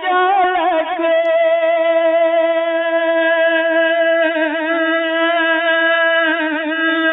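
A man's voice singing a naat, holding one long high note for about five seconds, with ornamented turns in pitch as it begins and again near the end before gliding down.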